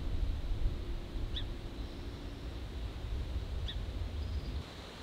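Song sparrow giving three short, high call notes, the second about a second and a half after the first and the third about two seconds later. Under them is a low rumble that drops away near the end.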